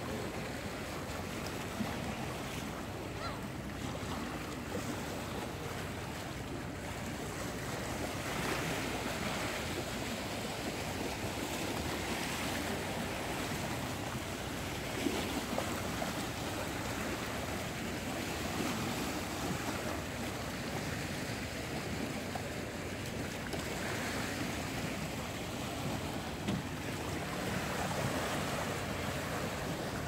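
Small sea waves washing over a rocky seawall and draining back between the stones. The surf hiss swells every few seconds as each wave comes in.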